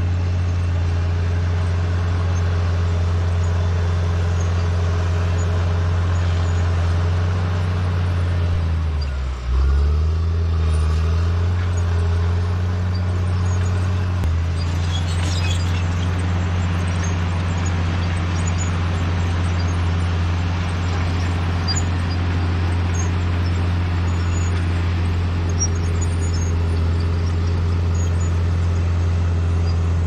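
Crawler bulldozer's diesel engine running steadily while it clears land. Its engine speed drops and picks back up about nine seconds in.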